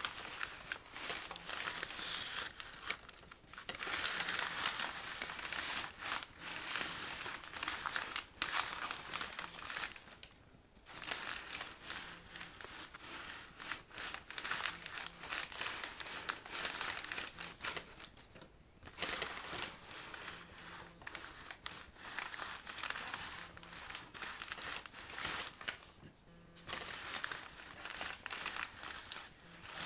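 Brown paper bags rustling and crinkling as they are shifted and crumpled, in a near-continuous run with a few brief pauses.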